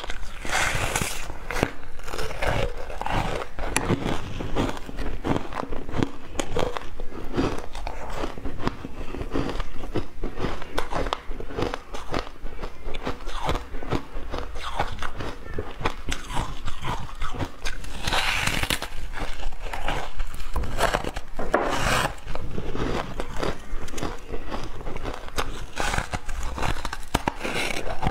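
A block of refrozen ice being bitten and chewed: steady crunching and crackling made of many sharp crisp cracks, with louder clusters of bites about a second in and again a little past the middle.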